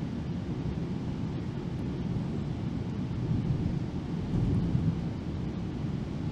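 Steady low rumble of a GO Transit commuter train running along the tracks, heard from inside a passenger coach, swelling slightly about halfway through.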